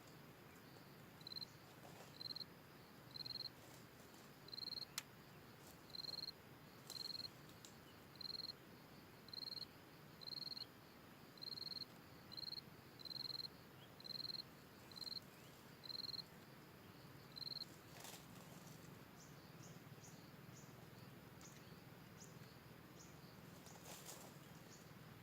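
A small animal's short high chirp, repeated steadily about once a second some sixteen times and then stopping, over faint forest background with a few soft clicks.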